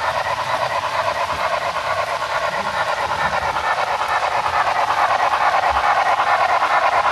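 Model B&O 2-8-2 Mikado steam locomotive's sound system giving steady, quick steam chuffing with hiss as the engine runs. It grows louder about five seconds in as the locomotive comes close.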